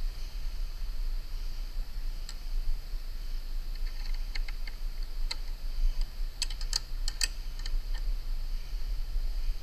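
Light metallic clicks and taps from a level and the chimney's metal support ring being shifted and settled by hand while the ring is levelled. A few scattered clicks, then a quick run of them about six and a half seconds in.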